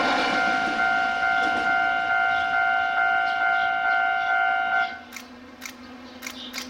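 Level crossing warning signal on the Taiwan Railway sounding a steady two-pitch electronic tone as the last of a passing train's noise fades, then cutting off suddenly about five seconds in once the train has cleared the crossing. Faint bird chirps follow.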